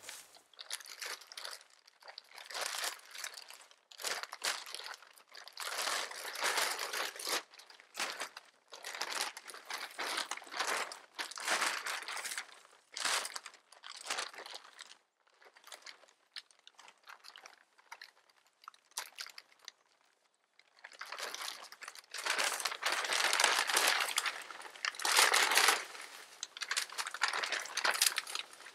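Large plastic camo tarp crinkling and rustling in irregular bursts as it is handled and spread over the shelter frame. There is a quieter stretch in the middle, and the handling is loudest near the end.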